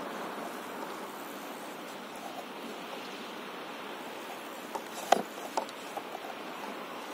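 Small waves lapping around a stand-up paddleboard on the sea, a steady wash. About five seconds in there are a few sharp clicks, one much louder than the rest.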